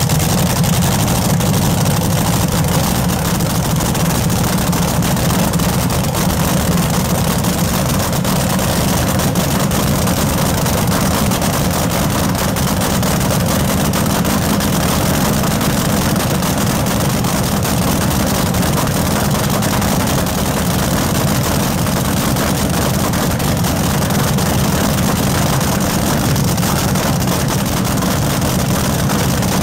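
Supercharged V8 of a front-engine AA/Fuel dragster idling, loud and steady, just after being fired up.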